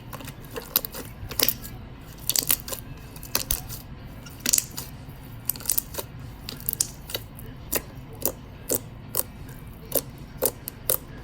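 Homemade white glue slime squeezed and poked by hand, giving a string of sharp pops and clicks at an uneven pace, one or two a second.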